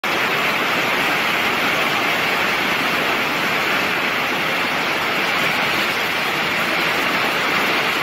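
A large waterfall's heavy curtain of water crashing into its plunge pool, a loud, steady, unbroken rush.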